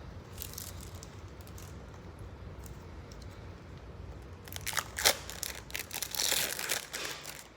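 Crinkling and tearing as something is ripped in half by hand to be layered into an omelet. It is quiet at first, with a few faint ticks, then becomes a busy run of crackles for the last three seconds.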